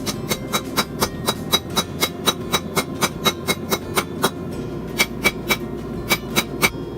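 Hammer blows on an anvil, forging a hot railroad spike, each strike ringing: a quick run of about four blows a second, then after a short pause two groups of three.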